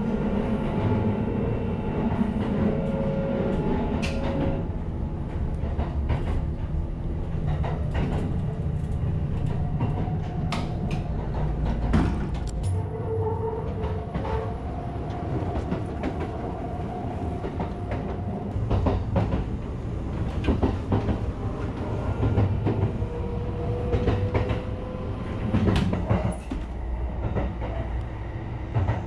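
Kintetsu 50000 series Shimakaze express train running, heard from inside the car: a steady low rumble with many scattered clicks and knocks, and faint steady tones that come and go.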